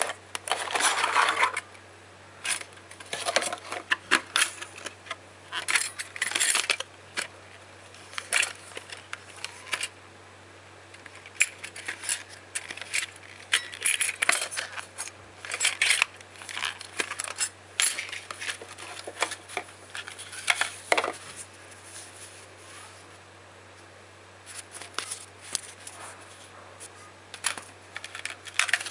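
Hands handling a cardboard box and a stock CPU cooler's metal heatsink and fan, making irregular clicks, taps and rustles with small hard clinks, paused briefly near the end.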